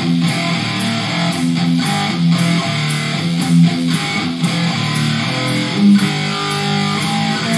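Hard-rock music: an electric guitar riff over bass and a steady drum beat.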